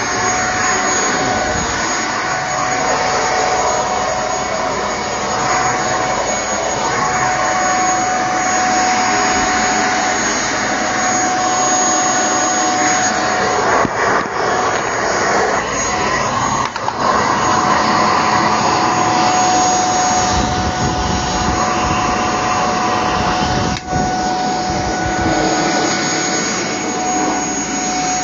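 Shark PowerDetect corded stick vacuum running steadily, a high motor whine over a broad rush of suction. The whine drops out for a few seconds about halfway through, and the sound dips briefly a few times.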